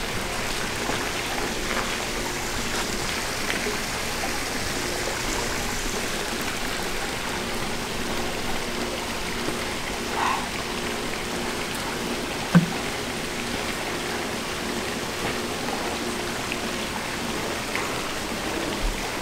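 Steady rushing, water-like background noise with a faint hum, broken by a short scrape about ten seconds in and one sharp click about twelve and a half seconds in.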